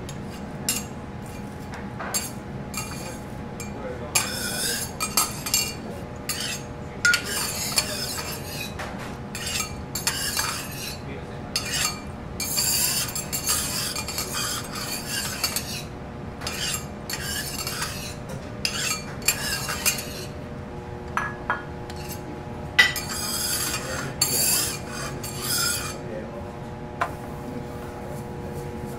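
Metal spatulas scraping, rubbing and clinking on a teppanyaki griddle in irregular strokes, over a steady low hum.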